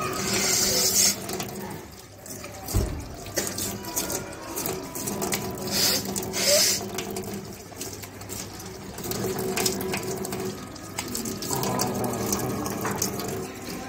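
Water poured through one nostril during jal neti, running out and splashing down, with two brief louder hissing bursts about half a second in and about six seconds in.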